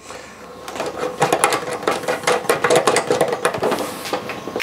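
Rapid, irregular clicking and rattling of the plastic windscreen mounting hardware on a BMW R1200GS as the knob is unscrewed by hand.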